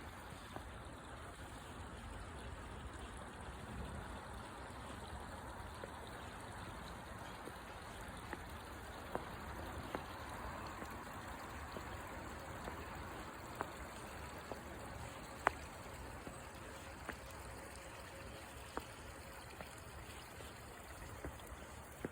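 Stream water running steadily, with scattered faint clicks through it and one sharper click about two-thirds of the way through.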